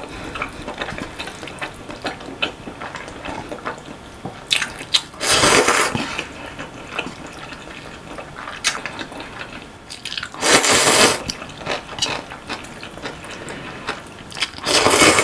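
Naengmyeon cold noodles being slurped, with wet chewing between; three long, loud slurps, about five seconds in, about ten seconds in and near the end.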